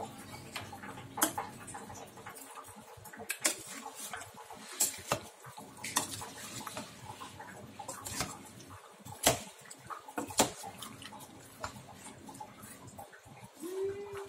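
Metal ladle stirring halved karanda fruit in syrup in a large stainless steel pot, clinking and scraping against the pot's side with irregular sharp knocks, the loudest twice a little after the middle.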